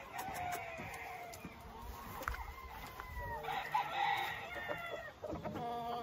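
Roosters crowing from several cages, the calls overlapping and falling in pitch, with a louder crow about three and a half seconds in.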